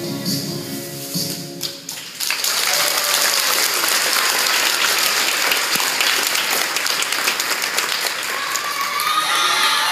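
Pom routine music ends about two seconds in, and a crowd bursts into applause and cheering, with high children's voices shouting near the end.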